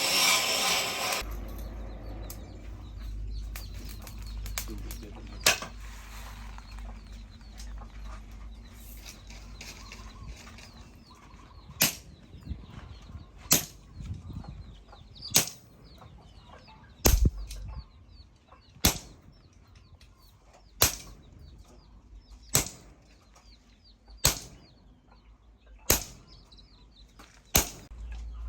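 Hammer blows on the leaf-spring steel, single sharp strikes about every second and three-quarters, sparse at first and then regular, over a low steady hum. A loud burst of hissing noise cuts off about a second in.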